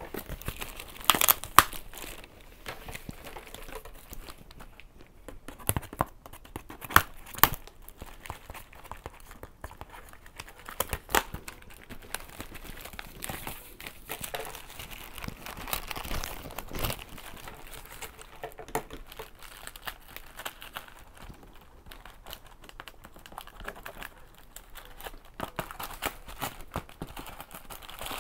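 Packaging wrapping being crinkled and torn open by hand, with irregular sharp crackles over a continuous rustle.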